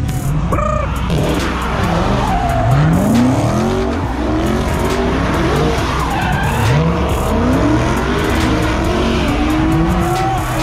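A car spinning donuts: its engine revs up and down over and over while the tires squeal and skid on the pavement.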